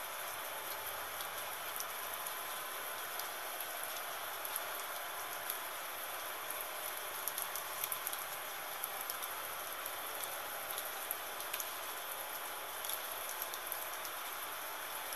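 Gentle rain falling steadily: an even hiss with the ticks of individual drops scattered through it.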